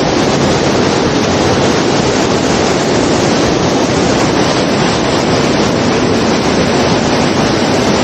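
Waterfall, water rushing loud and steady.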